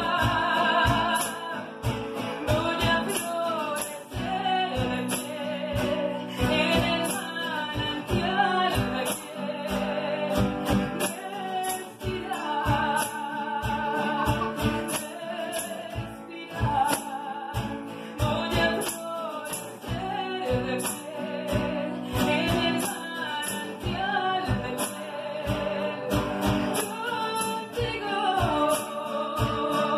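A woman singing a song live, accompanied by strummed acoustic guitars and a cajón keeping a steady beat.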